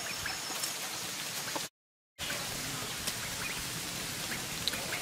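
A flock of ducks foraging on dry ground: a steady pattering hiss with scattered small ticks and a few faint, soft quacks. The sound cuts out completely for about half a second just before the middle.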